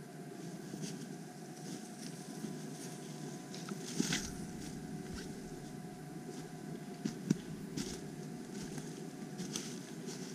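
A hiker's footsteps on a dirt forest path strewn with leaves and twigs, with scattered sharp crunches and snaps, the two loudest about four and seven seconds in, over a steady low rush.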